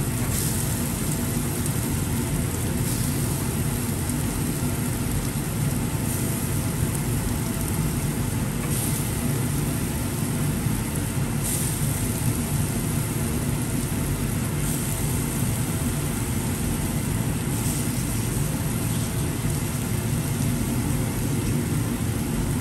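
Meatballs frying in a takoyaki pan: a steady sizzle over a continuous low rumble.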